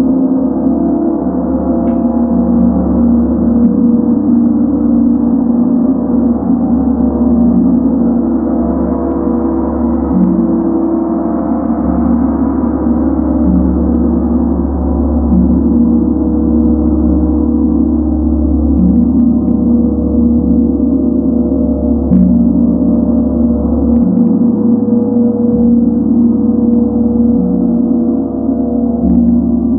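A large Tibetan gong, model 90ST-II, played continuously with a soft round-headed mallet. Its steady, loud, full ringing layers low humming tones and overtones, with no gaps and no single stroke standing out.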